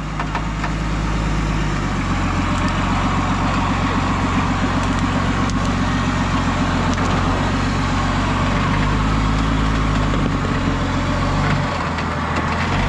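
Nissan Patrol GR 4x4's engine running at low revs while crawling slowly through a rough off-road passage. The note shifts a little as the driver eases the throttle on and off.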